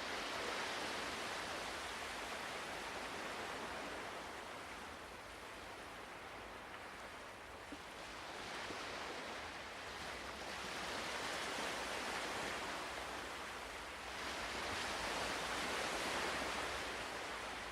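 Ocean waves, a soft rushing hiss that swells and fades slowly about three times.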